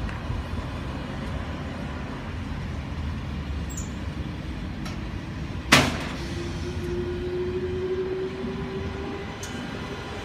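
Low, steady rumble of a TGV Euroduplex double-deck high-speed train at the station. About halfway through there is one sharp knock, then a steady tone that rises slightly in pitch over about three seconds.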